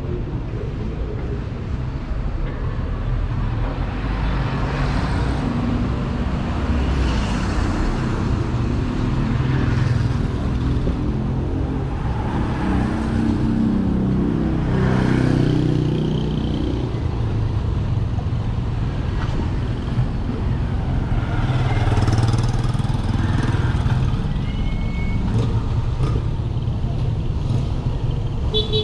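Busy street traffic: motor vehicles passing one after another over a steady engine rumble, with one engine running close by for a few seconds around the middle.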